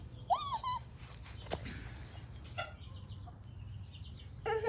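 Chicken calling: a short rising call just after the start and another brief cluck near the end, with a sharp click in between.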